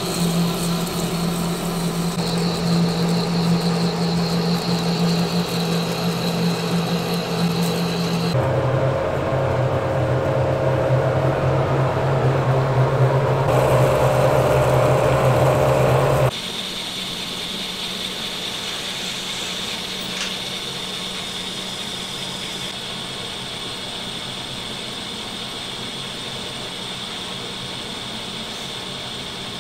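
Metal lathe running under load, cutting a 20KhN3A alloy steel blank: a steady machine hum with a high whine. The sound changes abruptly about eight seconds in and again about halfway, as the work moves from turning the outside to drilling with a large twist drill and then to boring the inside, with the last part quieter.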